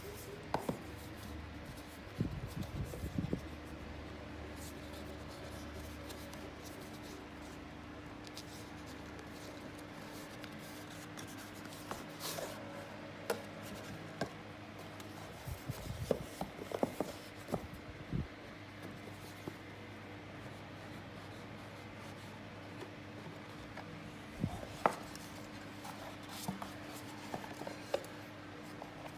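Hands handling a toy car and its packaging: scattered taps, clicks and rubbing scrapes in a few clusters over a faint steady hum.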